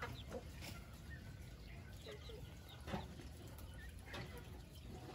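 Chickens clucking faintly, a few short scattered calls over a steady low background.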